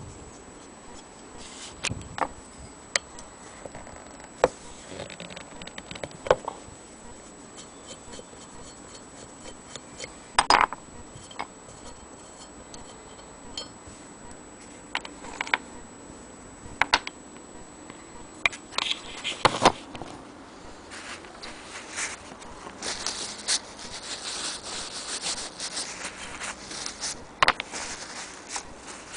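Handling noise: irregular clicks, knocks and scrapes as the cast-iron and wooden parts of an antique hand-crank sewing machine are picked up and moved about, with a stretch of rustling near the end.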